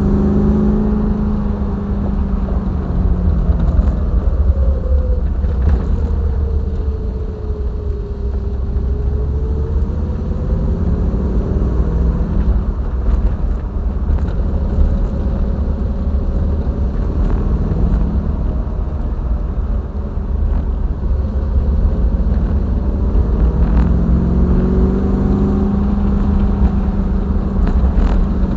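Triumph TR7's 4.6-litre V8 engine and road rumble on the move, the engine note rising and falling as the revs change. It eases off early, then pulls up again near the end.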